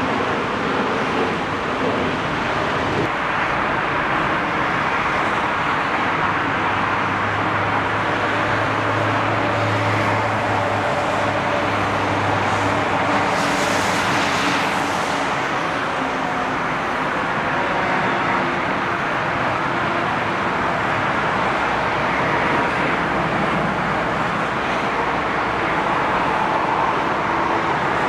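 Jet engines of an Airbus A380 at takeoff power: a steady, loud rushing noise with a low hum underneath, and a brief rise in hiss about halfway through.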